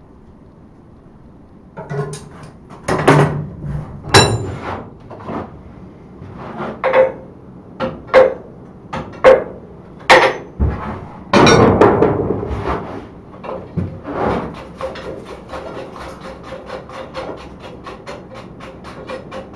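Hand hammer striking red-hot steel on an anvil, upsetting a four-rod twisted basket handle to open out the basket. Heavy separate blows come about one a second, some with a metallic ring. Past the middle they give way to lighter, quicker taps, about three or four a second.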